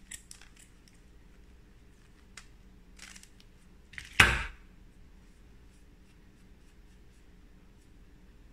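Scissors snipping through a pompom of black knitting yarn a few times at the start, then a single loud clack about four seconds in as the metal scissors are put down on the table, followed by faint rustling of the yarn.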